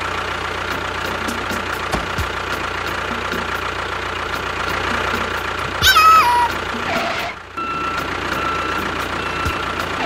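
Motor of a DIY mini construction vehicle running steadily with a constant whine. A short squeal falls in pitch about six seconds in, and the noise dips briefly about a second later.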